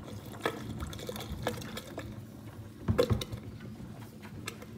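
Liquid chemical drain cleaner poured from a plastic bottle into a stainless steel kitchen sink drain, a stream trickling and splashing into the clogged drain, with scattered small clicks and one loud knock about three seconds in.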